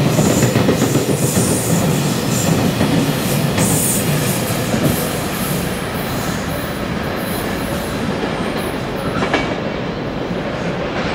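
Container freight train passing close by, its wagon wheels clattering over the rail joints with some squeal. About halfway through the last wagon goes by and the rumble carries on more softly as the train draws away.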